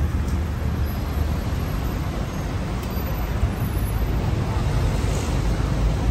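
Steady traffic noise from a busy city road, cars and trucks running past with a low rumble.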